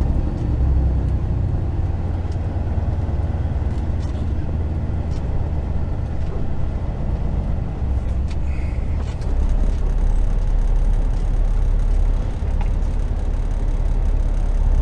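Semi truck's diesel engine running inside the cab as the truck rolls slowly, a steady low rumble.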